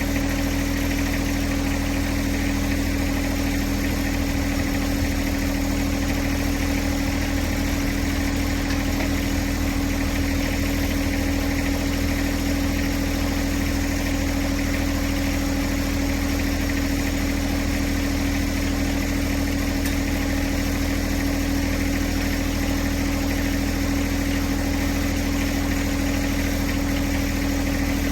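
John Deere 1026R compact tractor's three-cylinder diesel engine idling steadily, with no change in speed.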